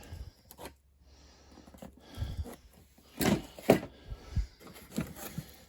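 Cardboard toy boxes and die-cast farm toys being handled: a scatter of short knocks and taps, the sharpest about two thirds of the way through.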